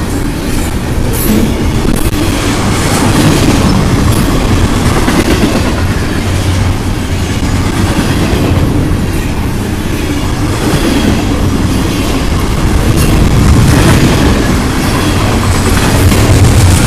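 Double-stack intermodal train's container well cars rolling past close by: a loud, steady rumble of steel wheels on rail with clattering, swelling louder near the end.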